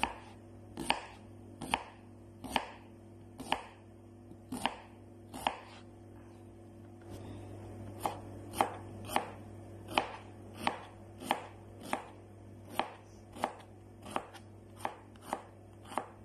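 Kitchen knife chopping a red onion on a cutting board, the blade knocking on the board about once a second at first, then after a short pause about twice a second as the onion is diced small. A steady low hum runs underneath.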